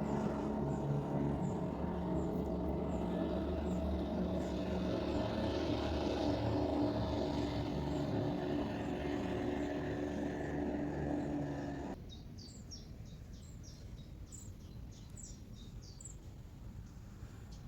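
An engine running steadily with a low rumble, cutting off suddenly about twelve seconds in. Then birds chirping again and again over a quieter outdoor background.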